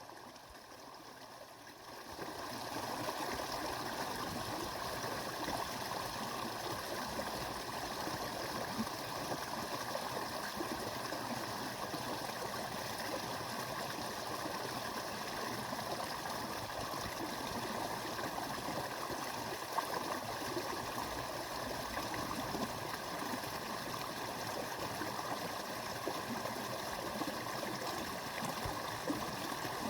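Small brook babbling steadily. It is fainter for about the first two seconds, then rises to an even level.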